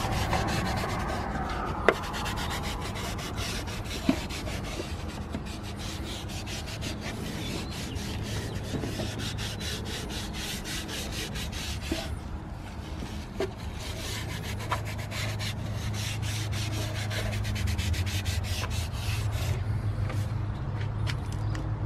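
A cloth rag rubbing and wiping over a plastic engine cover in quick, scratchy strokes, with a few sharp taps, over a steady low hum.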